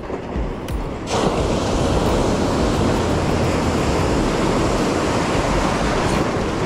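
Ocean surf: waves breaking and whitewater rushing in the shallows. The rush rises sharply about a second in and then holds steady and loud.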